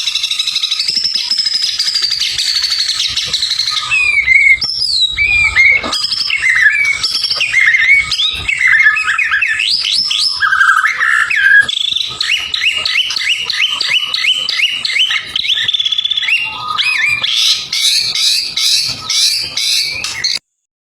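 White-rumped shama (murai batu) singing loudly. It opens with a fast chattering trill, then a varied run of whistled notes sliding up and down, then a quick series of repeated rising notes, about four a second. It cuts off suddenly just before the end.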